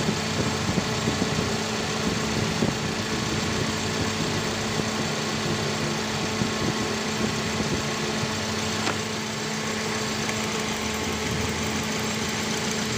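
Taxi's car engine idling steadily, with an even hum. The scan tool has flagged an ignition coil primary circuit fault, so the engine is idling with a failed ignition coil, which leaves it weak and without power.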